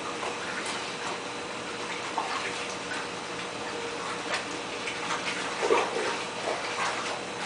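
Water running into an underwater treadmill tank as a steady rush, with a faint steady motor hum under it. A few short, sharper knocks or splashes come through, the loudest about six seconds in.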